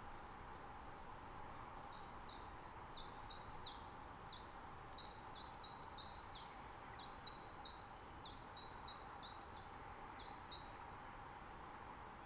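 Common chiffchaff singing: a long run of short, falling notes, about three a second. It starts about two seconds in and stops near the end.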